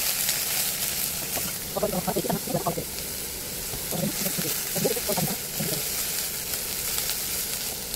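Diced bottle gourd frying in oil in a nonstick pan, sizzling with a steady hiss as it is stirred with a spatula.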